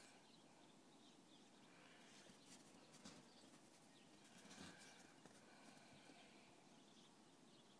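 Near silence, with a few faint crunches of footsteps in snow.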